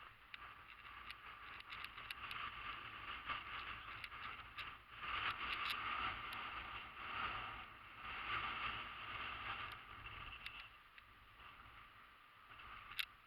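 Hoverboard rolling across a steel ship's deck: a hissing wheel-and-motor noise that swells over several seconds and fades, with small ticks throughout and one sharp click near the end.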